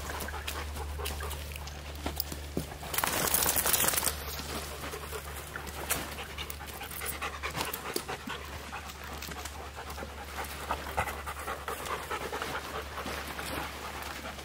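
German Shepherd and Rottweiler panting hard, winded from a two-mile hike, with small clicks and rustles of pack straps and buckles as their saddlebag packs are taken off; a louder rustle comes about three seconds in.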